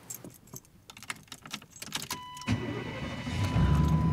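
Keys rattling, then about two seconds in a steady high warning tone sounds and a car engine starts. The engine runs with a low rumble that gets louder about a second later.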